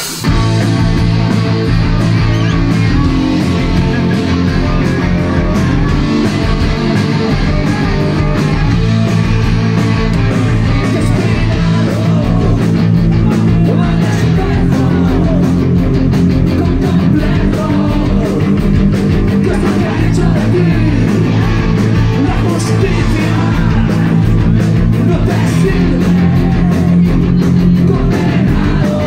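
Live rock band in full volume: electric guitars, bass and drums come in together just after the start, with a singer's vocals over them.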